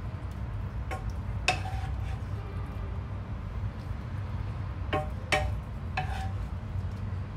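Wooden spatula knocking and scraping against a frying pan and a ceramic plate while stir-fried broccoli and beef is served out, giving about five sharp clinks with a short ring, the loudest about a second and a half in and again about five seconds in. A steady low hum runs underneath.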